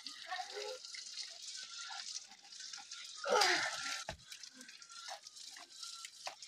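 Water running and splashing from a spring spout as plastic bottles are filled, a steady trickle with drips. One louder sound comes about three seconds in.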